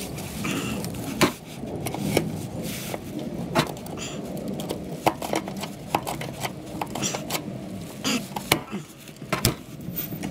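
Irregular clicks and knocks of hard objects being handled, a dozen or so sharp taps scattered over a steady low rumble.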